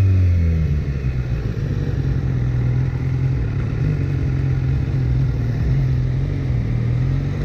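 BMW S1000R motorcycle's inline-four engine, its revs falling as the bike slows in the first second, then running steadily at low revs while it rolls slowly in traffic.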